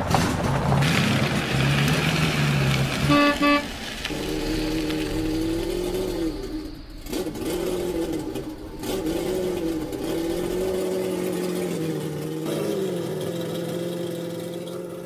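A car engine running, with two short toots of the horn about three seconds in; after that the engine note wavers up and down a little.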